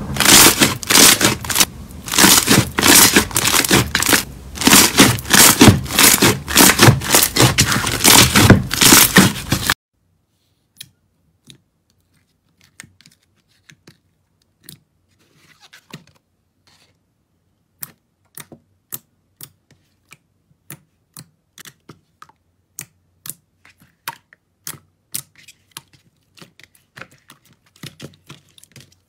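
Hands squishing and kneading slime. For the first ten seconds it crackles and crunches loudly and densely. It stops abruptly and is followed by a thicker slime being pressed, giving sparse quiet pops and clicks about one or two a second.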